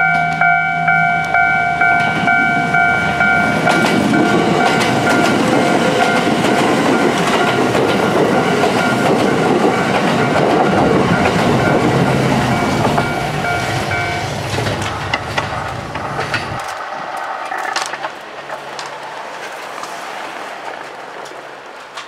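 A level-crossing warning bell ringing at about two strokes a second while a Kintetsu express of 2610- and 1240-series electric cars passes, its wheels clattering over the rail joints. The bell stops about fourteen seconds in, and the train's sound fades as it moves away.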